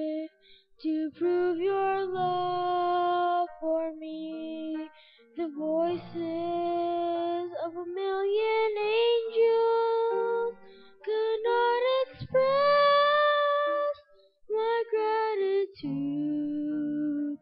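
A boy singing a sacred song solo into a microphone, in sung phrases with held notes and short breaths between them.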